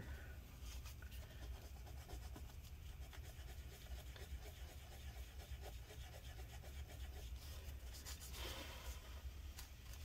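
Faint rubbing and scratching of a paper towel wiped over a laptop GPU die, clearing off old thermal paste, with a slightly louder swipe about eight and a half seconds in. A steady low hum runs underneath.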